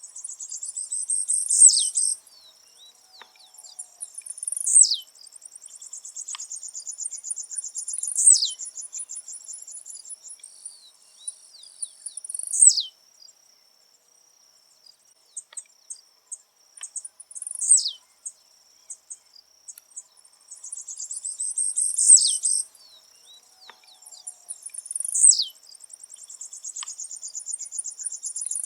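Blue-black grassquit (tiziu) singing its short buzzy song. There are about eight calls, each a sharp high note dropping steeply in pitch, repeated every few seconds. A steady high, rapid ticking trill runs between the calls.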